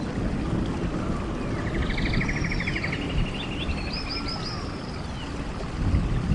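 Songbirds calling over a steady low rumble. A fast trill of repeated notes comes about two seconds in, and high, quick, downward-sweeping chirps come near the start, about two seconds in, and again about four seconds in.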